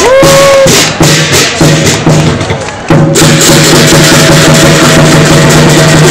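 Lion dance percussion: a Chinese drum with clashing cymbals and gongs, played loud and dense. The playing thins out about a second in and comes back in full about three seconds in, with gongs ringing on.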